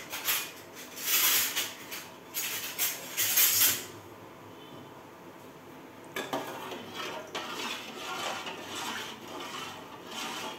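Metal dishes and a spoon clattering in several loud bursts over the first four seconds, then softer continuous scraping and clinking.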